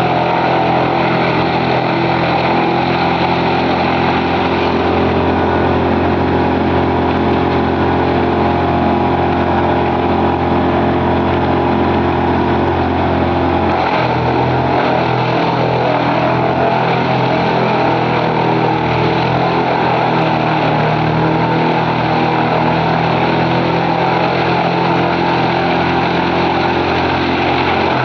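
Engine of a large wood chipper running steadily. Its note changes about halfway through.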